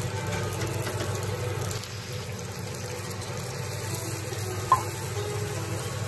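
Sardine and tomato mixture sizzling in a steel wok as water is poured in and stirred with a wooden spatula. One sharp knock about three-quarters of the way through.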